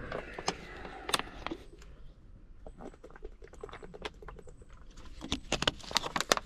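A water bottle being handled: a run of small clicks, knocks and crackles, more of them in the second half.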